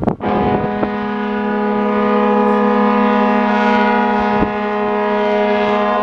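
Ferry's ship horn sounding one long, steady blast of about six seconds: a single deep tone with many overtones that starts just after a sharp click and stops near the end.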